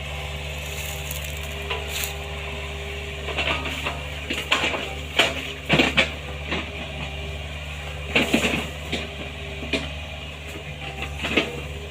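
Excavator diesel engine running steadily while the machine works, with irregular cracks, knocks and crunches, bunched in two spells: one about a third of the way in and one about two-thirds of the way in.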